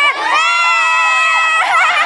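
A group of women and girls cheering in long, high-pitched held screams. About a second and a half in, these break into excited, wavering shrieks.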